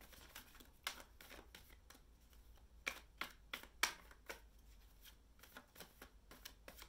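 Tarot deck being shuffled in the hands: faint, irregular flicks and slaps of cards, a few sharper ones around the middle.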